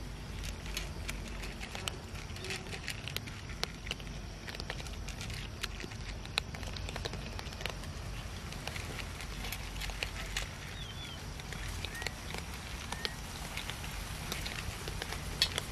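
Several cats eating dry kibble from a metal tray: irregular, closely spaced crunching and small crisp clicks as they chew, over a steady low background rumble.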